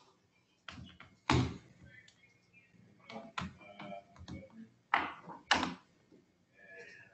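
Several sudden knocks and thumps, the loudest about a second in and twice more around five seconds in, with lighter taps between.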